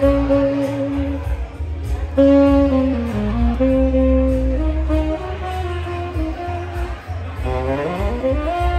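Saxophone playing a slow melody of long held notes over a steady bass accompaniment, ending in a smooth upward slide into a higher held note.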